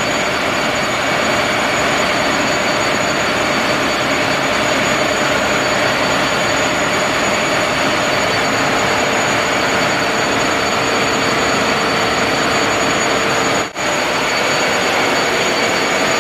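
Ship's engine-room machinery running: a loud, steady noise with a few steady whining tones over it and a momentary break near the end.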